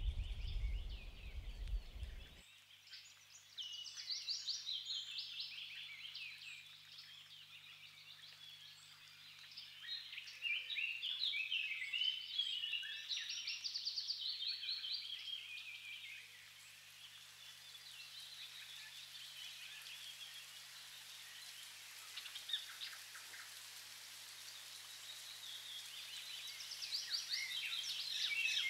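Songbirds singing, many quick chirps and trills overlapping in a chorus, over a faint steady hum. A low rumble underneath stops abruptly about two seconds in.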